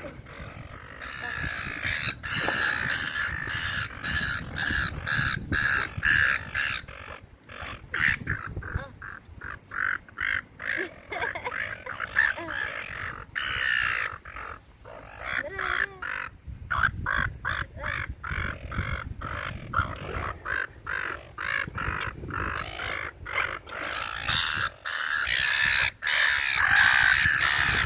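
A flock of seagulls squawking over one another while being fed: many short harsh calls in quick succession, thickest at the start and again near the end.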